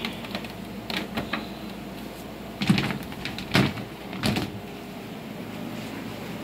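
A few light clicks, then three heavier knocks or thuds about a second apart near the middle, over a steady low hum.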